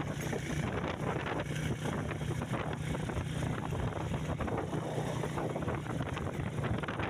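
A vehicle engine running steadily with a constant low hum, with rattling and wind buffeting the microphone, as on a ride along a rough road.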